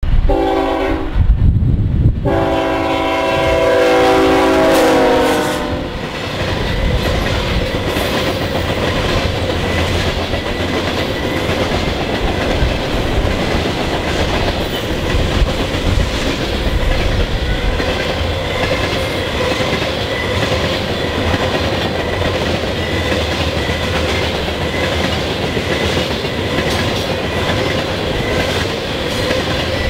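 Diesel freight locomotive's air horn sounding a chord: a short blast, then a long one lasting a few seconds, over the heavy rumble of the ES44DC locomotives passing. Then a long freight train of covered hoppers and tank cars rolls by steadily, wheels clacking over the rail joints.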